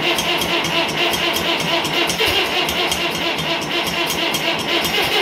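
Fordson Major Diesel's four-cylinder diesel engine idling with a steady, even exhaust beat just after a cold start in single-digit Fahrenheit cold, made without ether or a block heater.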